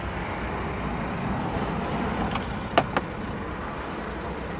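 Steady low rumble and hiss inside a parked SUV's cabin, with two sharp clicks close together about three seconds in.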